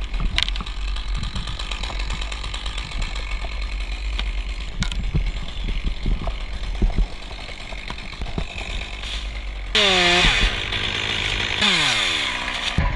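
Top-handle chainsaw running at idle, then revved hard twice near the end to cut into a beech stem, the engine note falling away after each burst.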